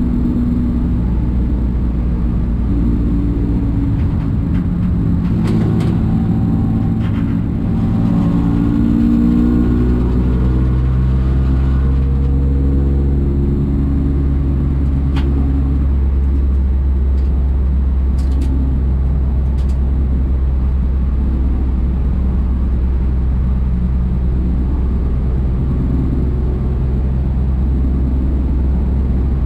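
Citroën C1 race car's engine running hard on track, heard from inside the car over a steady deep rumble of road and wind noise; the engine note rises and falls through the first half, then holds steadier.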